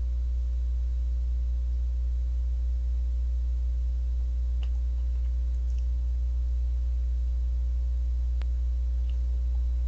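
Steady low electrical hum, unchanging throughout, with a few faint clicks.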